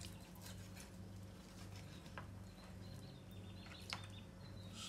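A few light clicks and faint scrapes of a knife and fork working roast rabbit off a rotisserie skewer on a plastic platter, over a low, pulsing hum.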